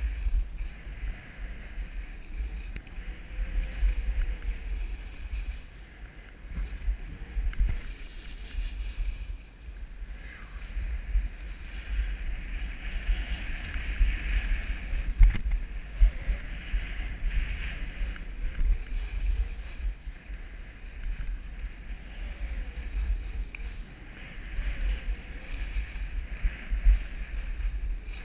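Wind buffeting the microphone of a body-mounted action camera on a moving skier, with the hiss and scrape of skis on packed snow swelling and fading with each turn.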